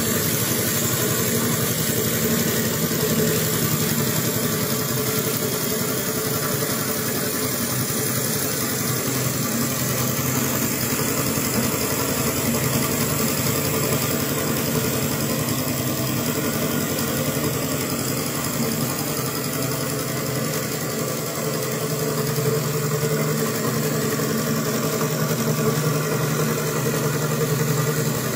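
Small double-acting two-cylinder model marine steam engine running fast and steady, with a rapid, even beat.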